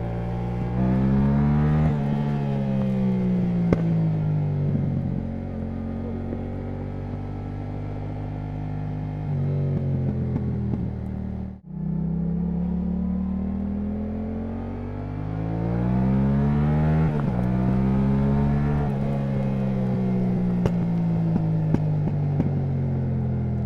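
Yamaha MT-07's parallel-twin engine through an Akrapovič titanium exhaust, revving up and easing off several times, its pitch rising and falling, with a few sharp pops. The sound cuts out for an instant about halfway through.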